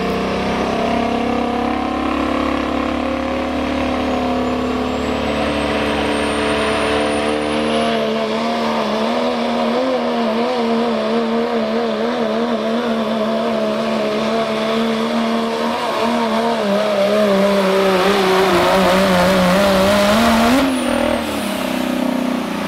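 Diesel pickup truck's engine at full throttle pulling a weight-transfer sled, its note wavering up and down under the load and climbing near the end. It drops off sharply about 20 seconds in as the pull ends.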